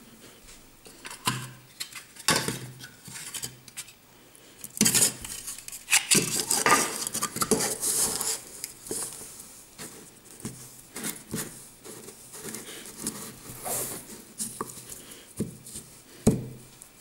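Kinetic sand being packed by hand into a plastic castle-tower mould: rustling and crumbling of the sand with irregular clicks and knocks from the hard plastic mould. The sound is busiest from about five to eight seconds in.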